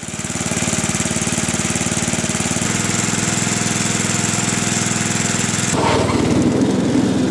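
Toro Wheel Horse 8/25 riding mower's 8 hp single-cylinder Briggs & Stratton engine running steadily. About six seconds in, the sound changes, with less hiss and a stronger low rumble.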